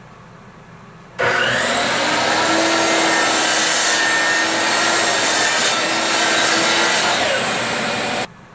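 Power saw running and cutting wood for about seven seconds, with a steady motor whine under the cutting noise; it starts and stops abruptly.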